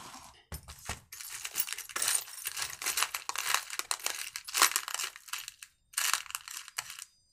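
Fingers rummaging through a tray of small metal parts (washers, nuts, bearings), the parts rattling and clinking against each other while a thicker washer is sought, with a short pause near the end.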